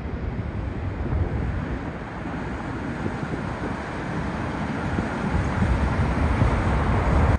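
Jet engine rumble of an Airbus A380 landing, with wind buffeting the microphone. The rumble grows louder over the last few seconds and cuts off suddenly at the end.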